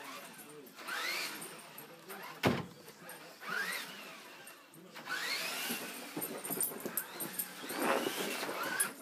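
Tamiya radio-controlled trucks' electric motors whining up and down in repeated bursts, mixed with a dog whining excitedly at them; a single sharp knock about two and a half seconds in.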